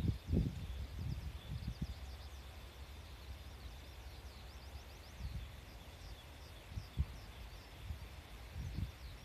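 Wind buffeting the microphone: a gusty low rumble, strongest in the first two seconds, with a few short gusts later. Under it, many quick, thin high chirps from small birds and a faint steady high whine.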